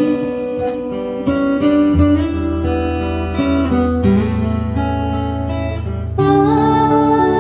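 Music: acoustic guitar playing an instrumental passage over held low bass notes, growing louder about six seconds in.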